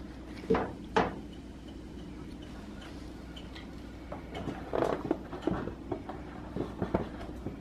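Metal kitchen tongs clicking against a plastic bowl as raw chicken pieces are coated in flour: two sharp clicks about half a second apart near the start, then a run of lighter taps and knocks in the second half, over a steady low hum.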